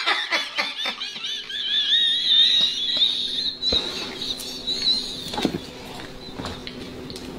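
A woman's long, high-pitched scream that wavers in pitch and fades out about five seconds in, with a couple of sharp knocks along the way.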